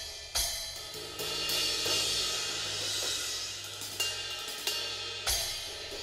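Arborea Killer series cymbals played on a drum kit: a continuous wash of cymbals and hi-hat with several sharp struck accents, and drums underneath.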